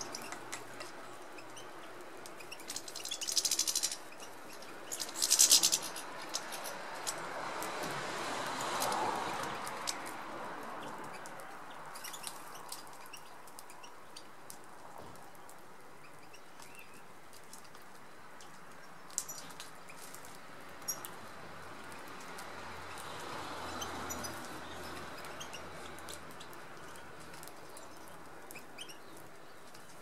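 European goldfinches feeding at a seed table: short high chirps and scattered sharp clicks of sunflower seeds being pecked and cracked, with two loud bursts of wing flutter a few seconds in.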